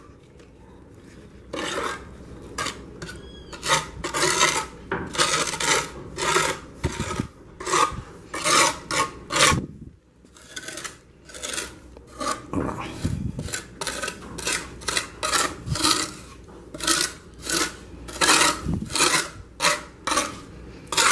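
Repeated rough scraping strokes, about one to two a second with a short pause about halfway, of a hand tool working mortar into the gaps between concrete blocks.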